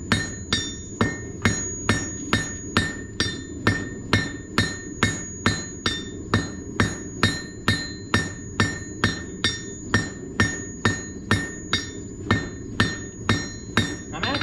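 Blacksmith's hammer striking hot steel on an anvil in a steady rhythm, a little over two blows a second. Each blow is followed by a high ring from the anvil.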